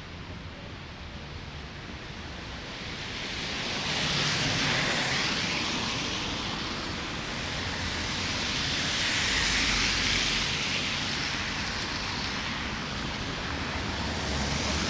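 Street traffic passing on a snow-covered road: tyre hiss and engine rumble of two vehicles swelling and fading, about four and ten seconds in, with another coming up near the end.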